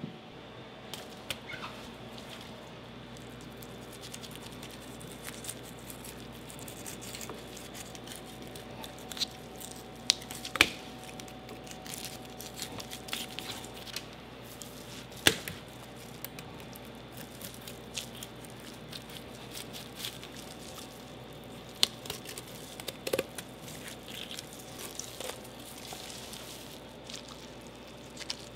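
Scattered knocks and clicks of a fish and knife being handled on a cutting board over a steady kitchen hum, with a few louder sharp knocks.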